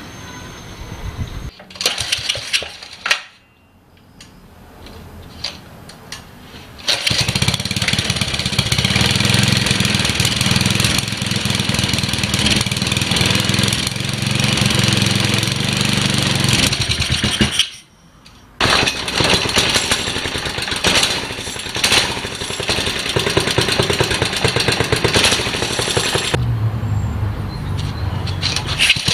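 Tecumseh 6 hp single-cylinder kart engine, fitted with a Briggs & Stratton muffler, catching about seven seconds in and running steadily. It cuts out for about a second around the middle, is running again right after, and its sound changes near the end.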